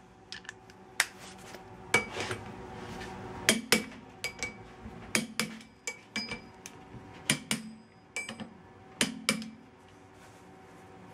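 Click-type torque wrench clicking off bolt after bolt as the ring gear bolts are brought to 50 foot-pounds on the first torque pass. Sharp metallic clicks, mostly in close pairs about a second apart, stopping near the end.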